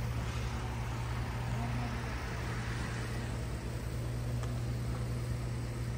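Ford F-150 pickup truck's engine idling, a steady low hum.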